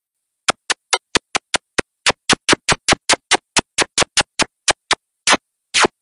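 A rapid string of lip-smacking kisses, about five a second, with two longer, fuller smacks near the end.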